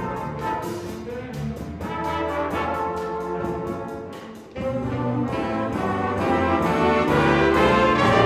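School concert band playing, brass to the fore over a light steady beat ticking about four times a second. The sound thins and dips about four seconds in, then the band comes back in fuller and grows louder.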